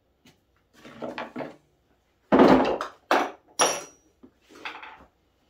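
Hand tools and small metal parts being handled and set down on a wooden workbench: a series of clatters and knocks, the loudest about two and a half seconds in, one leaving a short metallic ring.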